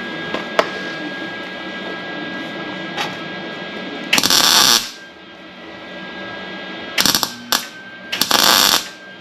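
Wire-feed welder laying short tack welds on thin sheet-metal body panels: three brief bursts of crackling arc, the first about four seconds in, a short one just after seven seconds and another just after eight, over a steady background hum.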